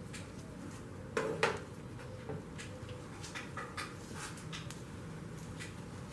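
Metal hardware being handled on a workbench: a bolt and nut knocking against a steel tray and a glass jar. Two louder knocks come about a second in, then lighter scattered clicks and clinks.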